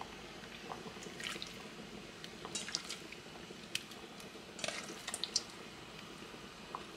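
Pieces of raw fish are dropped by hand into a pot of simmering broth, making several soft splashes and drips over a steady low bubbling.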